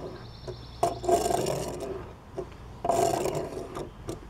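A die-cast Matchbox toy tank pushed across a wooden tabletop on its small wheels, making a rolling scrape twice: once starting about a second in with a click as it is set going, and again near three seconds. Each scrape lasts about a second.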